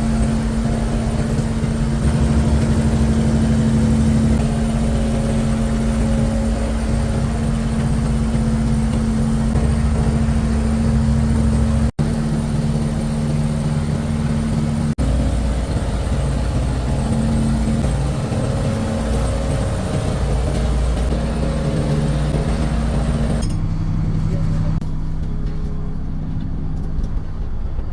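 Fishing boat's engine running steadily with a constant low drone, cut off for an instant twice partway through.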